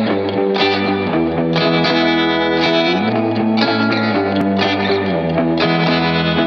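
Background rock music with a distorted electric guitar.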